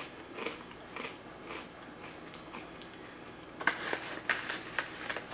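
A person chewing a hard, crunchy dried-pea snack (World Peas) with the mouth close to the microphone: a few faint crunches in the first second and a run of louder crunches about three and a half seconds in.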